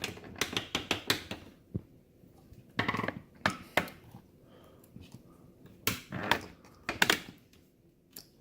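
Small tools and parts clicking and tapping on a workbench in irregular clusters, with quiet gaps between.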